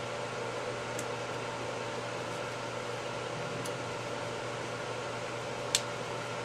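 A steady background hum, with a few faint clicks and then one sharp click near the end as a fuel-injector retainer clip is snapped into place on a 3.8L V6 fuel rail.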